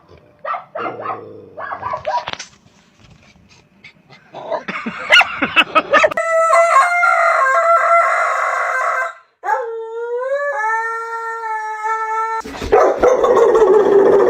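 Dog howling: a few short yips, then two long howls held for several seconds each, the second starting with an upward slide. A rougher, noisier loud stretch comes near the end.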